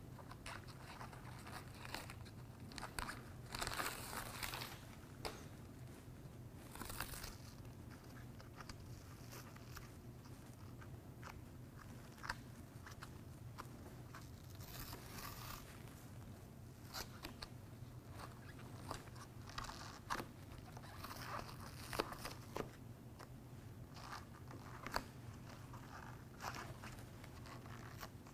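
Gloved hands pressing an adhesive-backed foam seal strip down along the top of a window air conditioner: faint, irregular rustling and crinkling with scattered small clicks, over a low steady hum.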